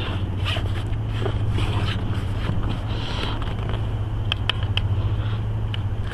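A steady low hum throughout, with light clicks and scrapes from hands working on a bicycle wheel and tire, including a quick cluster of clicks a little past the middle.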